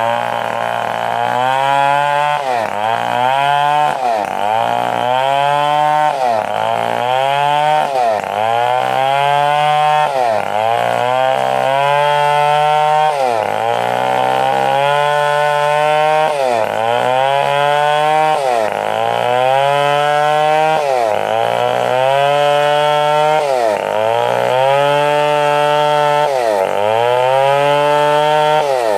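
Stihl 070 two-stroke chainsaw running under load while cutting wood. Its engine pitch dips and recovers about every two seconds as each cut bogs it down.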